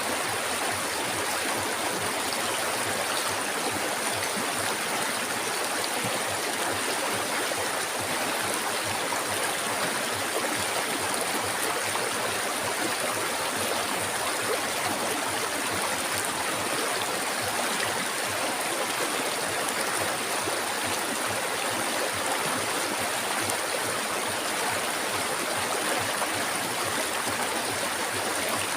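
Flowing river water: a steady, even rushing.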